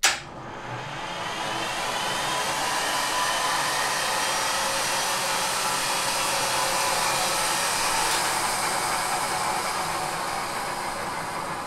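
A GTD-350 helicopter turboshaft engine being spun by its electric starter without ignition: a click as the starter relay closes, then a steady airy whir with a faint rising whine as the compressor spins up, easing off slightly near the end. The owner puts the weakening to a flat old battery.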